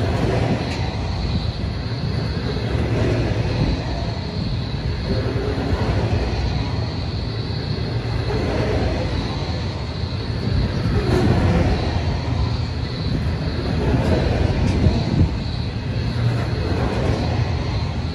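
Coal train's hopper wagons rolling past close by: a steady rumble of steel wheels on rail, swelling every few seconds into louder clatter as wagons go by.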